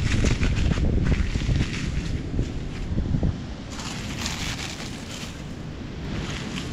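Wind buffeting the microphone, heavier in the first half and easing after about three seconds, with the rustle of dry seaweed and the crinkle of a thin clear plastic bag being pulled from it.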